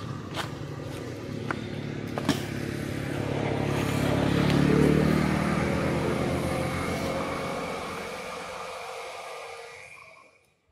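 A motor vehicle passing by. Its engine grows louder to a peak about halfway through, then fades away to near silence near the end, with a few sharp clicks in the first two seconds.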